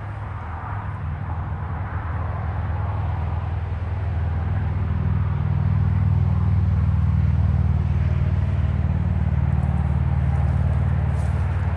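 A motor vehicle's engine running with a steady low hum, growing louder over the first several seconds and then holding level.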